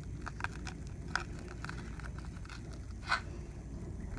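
Folding knife cutting through small whole baitfish on a plastic cutting board: a string of short, sharp crunches and taps as the blade goes through flesh and bone, the loudest about three seconds in.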